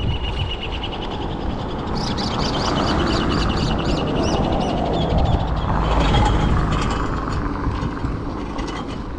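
A car passing on the road, its tyre and engine noise swelling to a peak about six seconds in and then fading.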